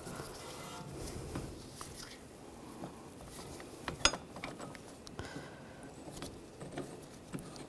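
Faint scattered clicks and clinks of metal tool pieces being handled as adapters for a brake caliper piston wind-back tool are sorted through, with one sharper click about four seconds in.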